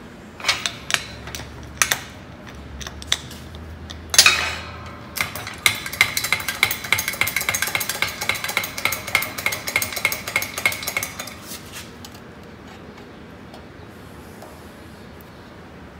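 Steel parts and tools handled at a hydraulic shop press: a few light metallic clinks, a sharp ringing clank about four seconds in, then a run of rapid, even metallic clicking for about six seconds before it stops.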